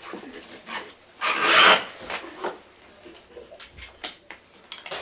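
Nylon webbing strap of a wheelchair lap belt rubbing and sliding as it is pulled across the body and fastened. There is a loud scraping rush about a second in, then a few small clicks of the plastic buckle near the end.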